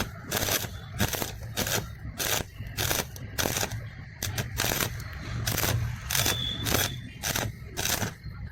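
Repeated short scraping or striking strokes on steel, about two to three a second, over a steady low hum.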